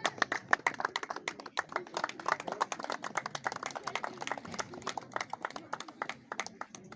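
A small crowd clapping, irregular and ongoing, with faint voices murmuring underneath.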